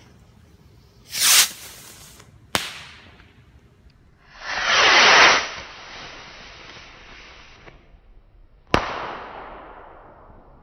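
Texas Pop bottle rockets firing: a short whooshing launch about a second in, then a sharp bang. A longer, louder whoosh about four seconds in is followed near the end by a second sharp bang that fades away slowly.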